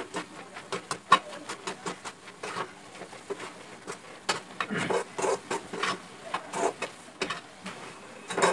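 A metal spoon stirring instant noodles in a steel pan, scraping and clicking against the pan several times a second.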